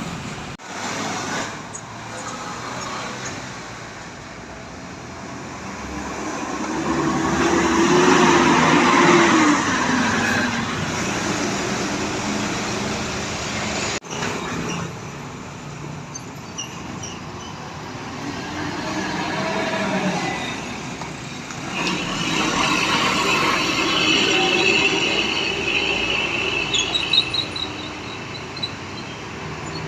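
Road traffic passing close by: large vehicles rise and fade in turn, the loudest passing about eight or nine seconds in with a falling engine drone. The sound drops out for a moment about halfway through.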